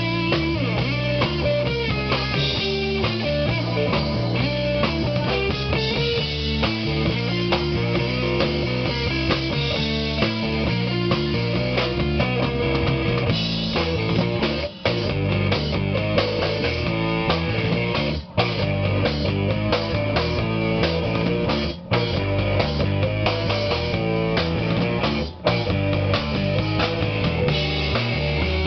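Rock music with guitar and drum kit, playing steadily and loudly. In the second half the music stops dead for an instant four times, about every three and a half seconds.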